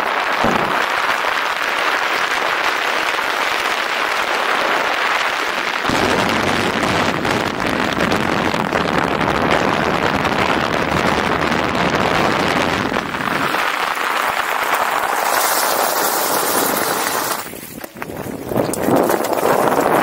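Steady rush of wind on the microphone and rolling noise during a fast downhill ride, with a deeper buffeting rumble through the middle stretch and a brighter hiss later on. The level dips briefly about three-quarters of the way through, then the rush comes back.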